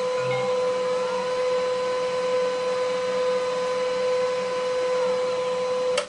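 Printer's motor whining at a steady pitch for about six seconds, then cutting off suddenly.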